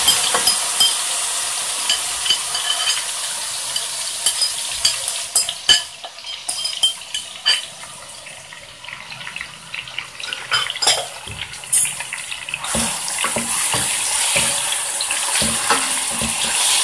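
Marinated chicken sizzling as it fries in hot oil in a steel pot, with scattered knocks and scrapes against the pot as it is tipped in from a bowl and stirred with a wooden spoon. The sizzle dies down in the middle and picks up again near the end.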